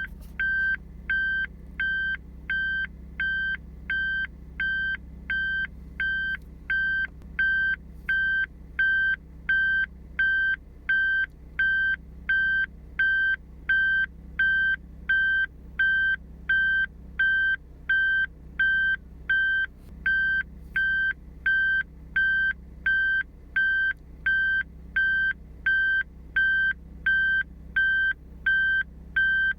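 Vehicle reversing beeper sounding while the car backs up: a single high electronic beep repeating evenly, about one and a half times a second, over a steady low hum.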